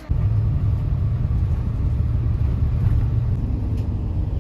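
Steady low rumble of a bus in motion, heard from inside the cabin, starting abruptly right at the beginning.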